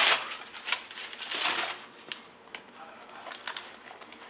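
Packing material rustling and crinkling as it is unwrapped by hand, with scattered small clicks. The rustling is loudest at the start and again about a second and a half in, then dies down to a few light taps.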